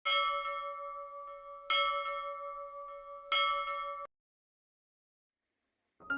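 A bell struck three times, about a second and a half apart, each strike ringing on with a steady tone until the sound cuts off abruptly about four seconds in.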